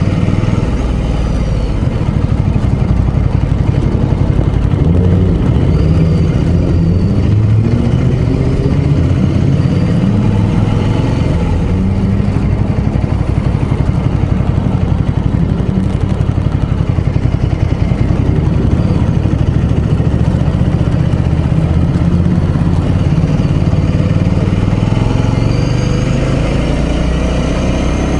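Ducati Scrambler Sixty2's air-cooled 399 cc L-twin running at low speed, its note rising several times as it pulls away through the gears. The engine is new and being run in.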